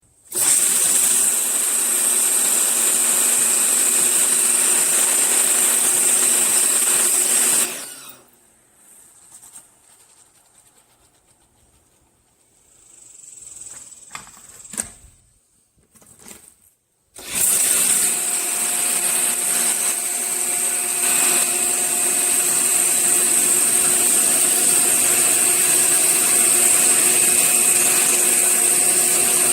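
RunInMist 1800 PSI electric pressure washer running: its motor and pump hum steadily under a high hiss. It stops after about seven and a half seconds, leaving near quiet with a few small knocks, and starts up again about seventeen seconds in, running steadily.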